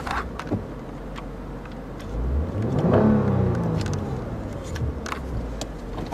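2014 Lexus IS 350's 3.5-litre V6 engine idling in Park, then revved once: the pitch rises for about a second and drops back to idle.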